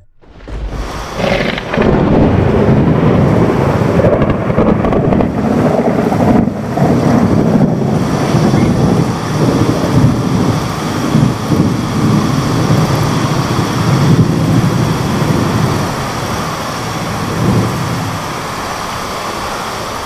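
Thunder in one long rolling peal, rumbling and crackling over steady rain. It swells in over the first couple of seconds and eases off over the last few.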